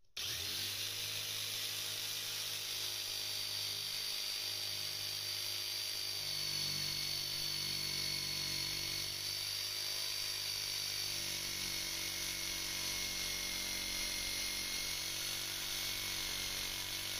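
Corded electric jigsaw running steadily as it cuts through the bathroom floor panel, with a high motor whine over the blade's sawing.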